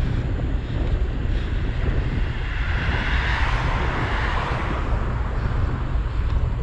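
Wind buffeting the microphone of a moving bicycle, a steady low rumble. About three seconds in, a vehicle passes, its tyre hiss swelling and fading over about two seconds.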